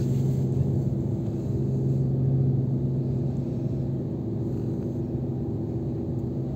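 Steady low engine drone with several held tones, heard from inside a car on a car ferry; the strongest low tone weakens about four seconds in.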